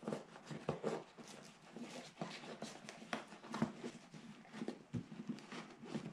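Nylon fabric and webbing rustling and scraping as a strap is worked through MOLLE loops on a soft luggage bag, with irregular soft clicks and scratches.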